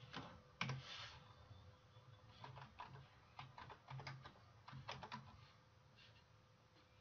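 Faint keystrokes on a computer keyboard, a quick run of taps that stops a little after five seconds in.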